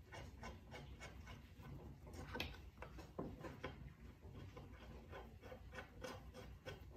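Faint handling sounds as a melamine-faced MDF table is positioned on the mortiser base and flathead screws are set into its countersunk holes: scattered light taps and clicks with soft rubbing, two slightly sharper taps around two and a half and three seconds in.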